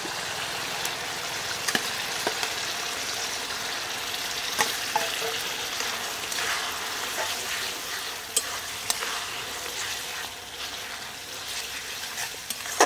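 Marinated raw chicken sizzling in hot spiced masala in a metal kadai, stirred with a spatula that clicks and scrapes against the pan now and then.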